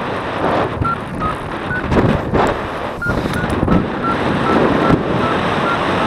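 Wind rushing over the microphone as a paraglider is winch-towed up into the air, with a paragliding variometer's short high beeps from about a second in, repeating faster later and stepping slightly up and down in pitch, signalling a climb.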